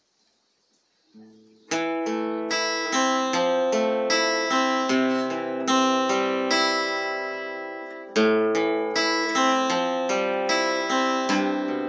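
Acoustic guitar strummed in a slow chord introduction, starting after a second or so of silence; each chord rings and fades before the next, with a fresh, louder strum about eight seconds in.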